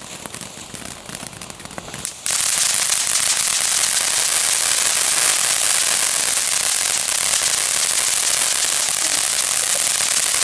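Ground fountain firework spraying sparks: quieter crackling at first, then about two seconds in it jumps to a loud, steady, high hiss that holds.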